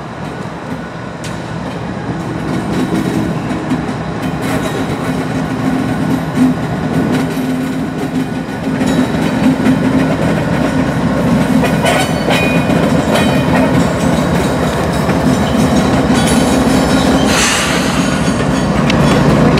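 Two GE ES44AC diesel-electric locomotives pulling a train past at close range, their V12 engines running with a steady low drone that grows louder as they come alongside. Rail clicks and brief high wheel squeals join in the second half.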